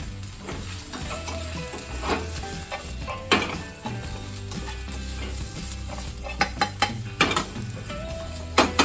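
Food sizzling as it stir-fries in a hot pan, with a metal spatula scraping and knocking against the pan: once about three seconds in, several times in quick succession past the middle, and twice near the end.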